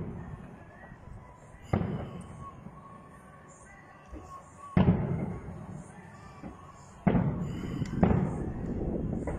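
Aerial firework shells bursting: four booms, the first two about three seconds apart, then two close together near the end, each trailing off in a low rumble.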